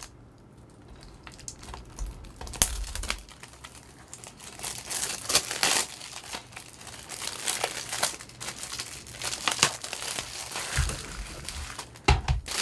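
Plastic shrink-wrap on a DVD case being cut down the side and peeled off, crinkling and tearing irregularly from about two seconds in.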